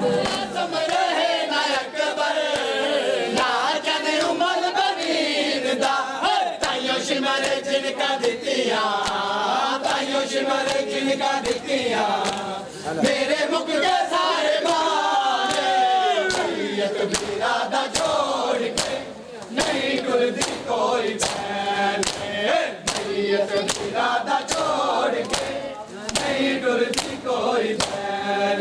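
A group of men chanting a Shia noha in unison during matam, with rhythmic slaps of hands beating on chests keeping the beat.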